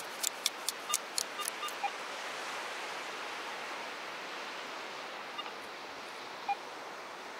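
RTG Kick It perforated metal sand scoop being shaken to sift wet sand, giving a quick run of sharp clicks and rattles in the first two seconds. After that, steady surf noise.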